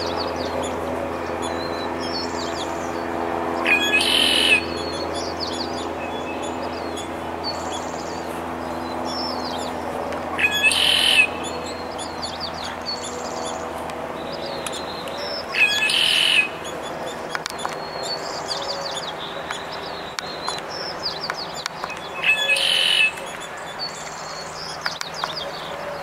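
Wild songbirds singing: one bird repeats a short, bright song phrase four times, roughly every six seconds, while other small birds chirp faintly between its songs.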